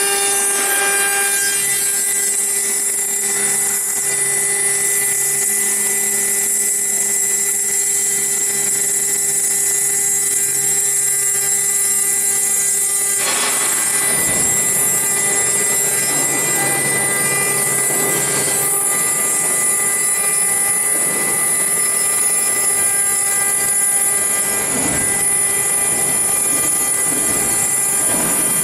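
Stone CNC router spindle running with a steady high whine while its cutter grinds into a stone slab under a water coolant spray. The sound shifts in character about halfway through.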